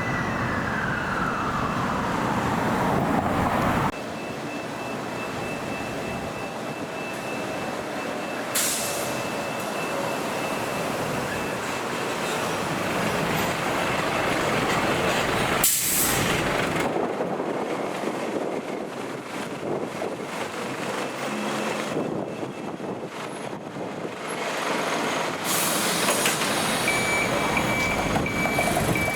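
A fire truck's siren winds down over the first few seconds. The truck's engine then runs, with three short air-brake hisses. A reversing beeper starts near the end.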